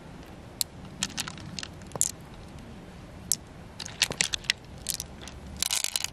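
Pearls clicking against each other and against the shell as fingers pick them out of a pearl mussel and gather them in a palm: a scatter of short sharp clicks, with a quick rattle of them near the end.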